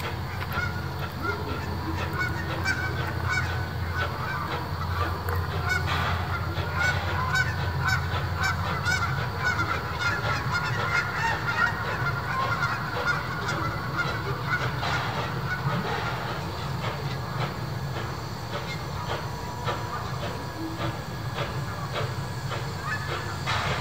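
Steam locomotive working slowly toward the listener with a passenger car, a steady low rumble with a rapid patter of clicks from the exhaust and wheels on the rail joints. Through the first half there are wavering, high honk-like squeals.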